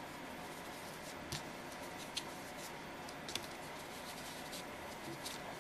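Faint, soft taps and scratches of a fingertip dabbing chalk onto small polymer clay discs on a paper plate: a few light clicks over a low steady hiss.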